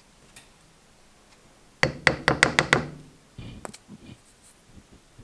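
A quick run of about six sharp knocks on a hard surface, about two seconds in, followed by a few softer clicks and handling noises.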